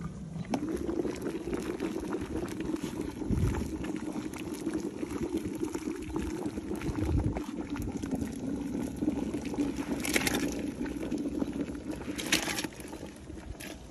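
Seafood-boil broth bubbling steadily in a bucket. The sound rises as the lid comes off about half a second in. Near the end, raw shrimp are tipped in with a splash, and the bubbling then falls quieter.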